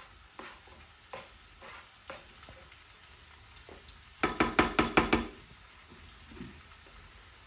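Spatula scraping and tapping as chopped vegetables go into a frying pan, over a faint sizzle of frying. About four seconds in comes a quick run of about eight loud clattering strikes, then a single knock a little later.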